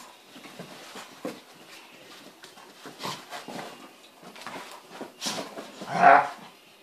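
A Doberman and a smaller dog play-fighting: irregular scuffles and short dog vocalisations, with one louder vocal outburst about six seconds in.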